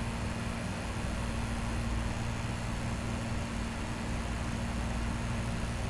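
Steady background hum and hiss on the microphone, with a low rumble and one faint steady tone underneath, unchanging throughout.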